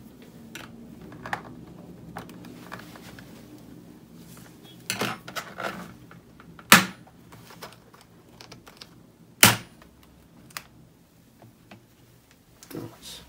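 Sharp plastic clicks and snaps from an Acer Aspire F5-573G laptop's bottom cover being pried off its clips, with smaller knocks and rattles in between. The two loudest snaps come about seven and nine and a half seconds in.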